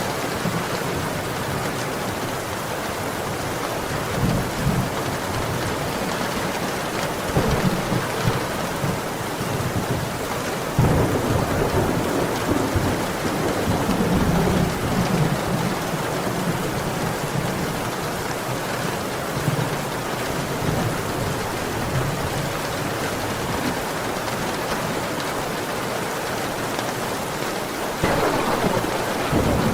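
Heavy rain falling steadily, with low thunder rumbling through it several times, the loudest swell about eleven seconds in and another near the end.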